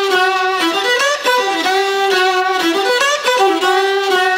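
Instrumental background music with a violin playing a lively melody, its notes sliding between pitches.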